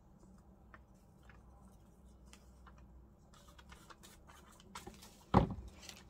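Paper being handled while pieces are stuck down on a card: light rustling and small taps, getting busier after about three seconds, then one sharp thump about five seconds in.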